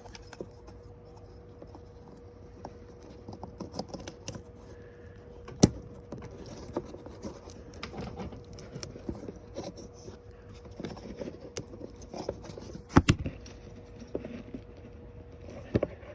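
Wire connectors being handled and plugged together in the ride-on's battery compartment: scattered small clicks, scrapes and rattles, with a sharper click about six seconds in and another about thirteen seconds in.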